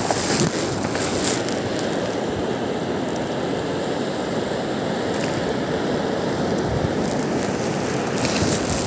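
Surf washing up on a sandy beach: a steady rushing hiss.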